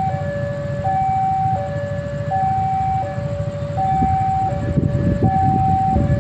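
Two-tone electronic warning alarm of a railway level crossing, sounding a steady high-low ding-dong about every one and a half seconds, as it does while a train approaches. A steady low rumble runs underneath, with a few knocks in the second half.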